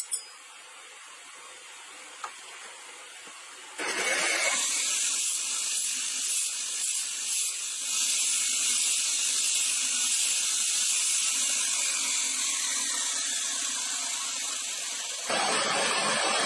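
Grinding wheel running against a steel knife blade: a steady high-pitched hiss that gets much louder about four seconds in. Near the end it changes abruptly to a deeper, fuller rushing noise of a forge burner.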